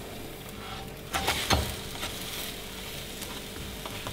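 Egg-batter cheese pancake frying in a little oil in a non-stick pan, a faint steady sizzle. A little over a second in come two short soft knocks as the pancake is turned over in the pan.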